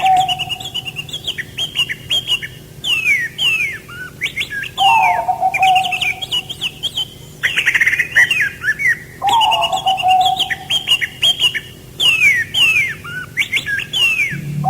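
Songbirds chirping and singing in quick, downward-sweeping notes, overlapping one another. A lower, drawn-out call repeats about every four to five seconds.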